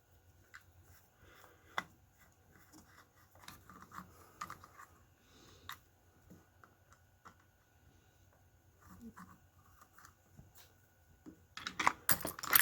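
Faint clicks and scrapes of small parts being handled while the switch assembly is worked off a Zoeller sump pump, ending in a louder burst of metallic clatter near the end.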